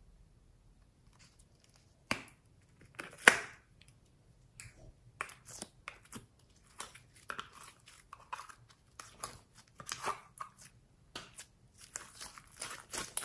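The plastic lid of a slime tub is pried open with two sharp cracks about two and three seconds in. Then glossy glitter slime is pulled out and stretched by hand, giving a run of quick, sticky clicking and crackling.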